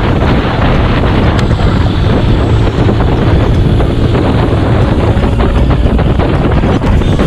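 Loud wind rush on the microphone of a moving motorcycle, over the steady running of its engine and the road.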